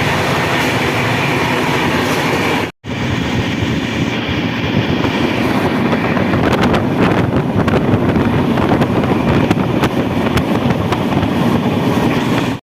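A passenger train running on the rails, heard from on board as a loud, steady noise of wheels and track. It cuts out for a moment about three seconds in, there is a run of sharp clicks in the second half, and the sound stops abruptly near the end.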